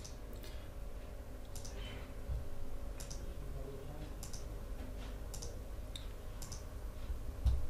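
Computer mouse clicking: about ten single clicks, spaced a half second to a second apart, over a faint steady hum.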